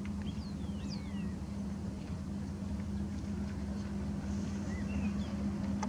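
Steady low hum with a constant tone and rumble underneath. A bird gives a few thin, descending whistles about half a second to a second in and short chirps near the end. A couple of clicks come right at the end.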